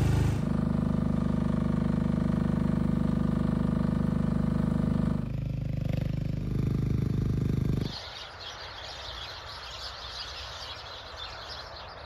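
Mini excavator's engine running steadily, its note changing about five seconds in. After about eight seconds it gives way to a quieter outdoor background with a high hiss.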